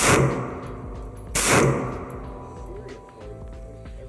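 Two shots from a Diamondback DBX57 5.7x28mm pistol, about a second and a half apart, each with a long reverberant tail.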